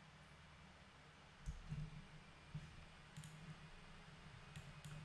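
A few faint computer mouse clicks over a low hum, otherwise near silence.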